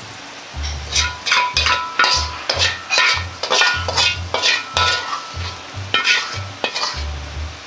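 Metal ladle scraping and clinking against a wok as the stir-fry is scooped out onto a plate: a quick, irregular run of metallic scrapes and knocks with short ringing tones.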